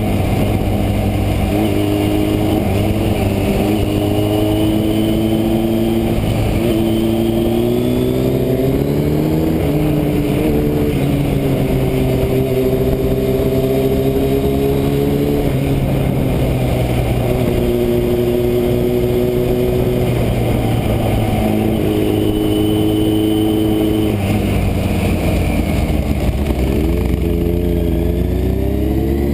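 Motorcycle engine heard from on board while riding, its pitch rising and falling several times with throttle and gear changes, over a steady rush of wind.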